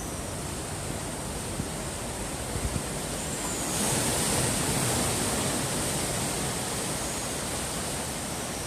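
Ocean surf washing steadily against the shore, swelling louder about four seconds in. A few faint high chirps sound over it.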